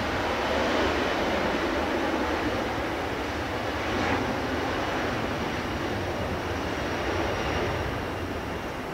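Jet airliner engines at takeoff power during the takeoff roll, heard from a distance as a steady rushing noise that swells slightly about four seconds in, with a faint high whine over it in the second half.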